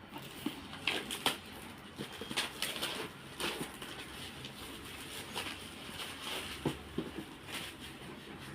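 Plastic shrink wrap crinkling and tearing as it is stripped off a product box by hand, with irregular crackles and small sharp clicks.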